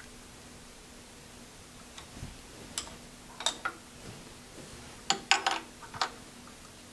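Light clicks and taps of small metal parts being handled on a drill mill. There are a few scattered clicks, then a quick cluster of clinks about five seconds in, over a faint steady hum.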